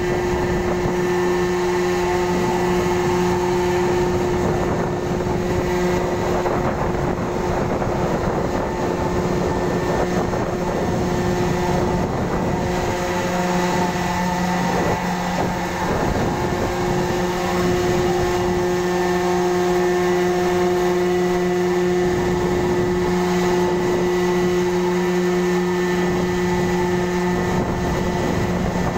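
Ferry's engines and machinery running: a steady drone with a few held tones, one of which drops out for a couple of seconds around the middle and again near the end.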